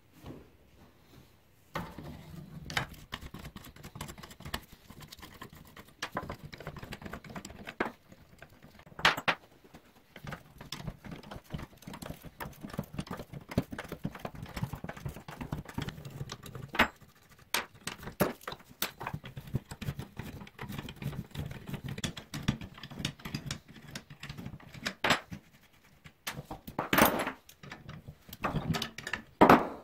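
Hand tools undoing the nuts and bolts on the side frame of a 1950s Ransomes Ace Mk.2 push reel mower: a spanner and a ratchet with socket give runs of quick metallic clicks and clinks, starting about two seconds in, with a few louder knocks of metal on metal.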